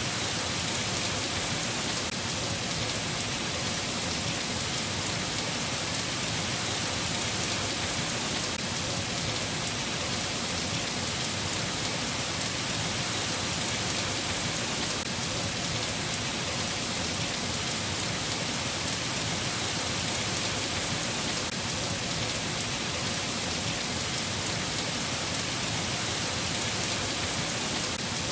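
Rain falling steadily, an even, unbroken hiss of many drops with no thunder.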